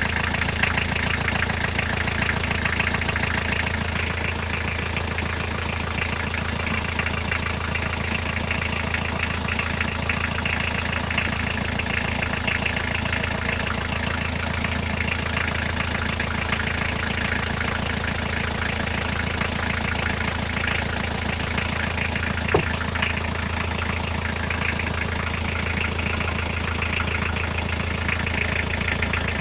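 C1 small car's engine idling steadily with a rapid knock running through it, a knock whose cause the owner is trying to find. A single sharper click about three quarters of the way in.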